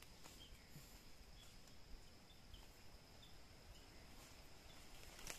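Near silence: faint woodland ambience with a steady high insect drone and small high chirps about once a second.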